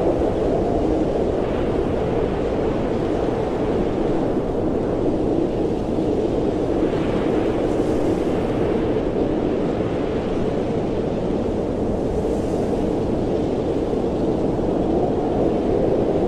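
Blizzard wind blowing steadily: a dense rushing noise that swells and eases slightly without a break.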